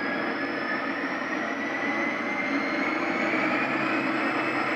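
Digital sound decoder's recording of an EMD 16-645E3 turbocharged V16 diesel, as in a GP40 locomotive, playing through a model locomotive's small loudspeakers. The engine runs steadily under a high whine that rises slowly in pitch, the turbocharger spooling up as the throttle is raised.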